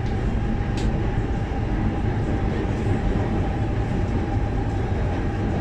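Inside a Guangzhou Metro Line 6 linear-induction-motor train car running between stations: a steady rumble with a thin, even whine. A single click about a second in.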